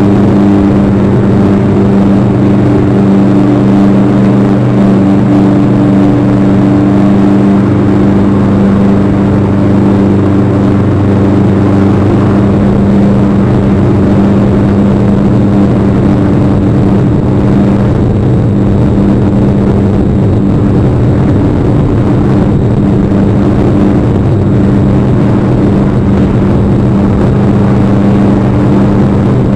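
A loud, steady hum at an unchanging pitch over a constant hiss.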